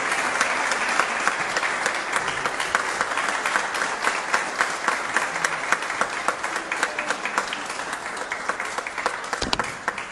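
Audience applauding: many hands clapping steadily, then thinning out near the end.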